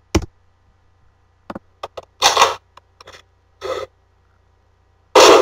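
Gun sound effects on playback: metallic gun-cocking clicks and racking sounds in the middle, then one sharp, loud gunshot effect a little over five seconds in.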